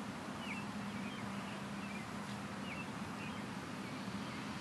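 Open-air ambience: a steady hiss with a low, steady hum underneath, and a few short bird chirps in the first few seconds.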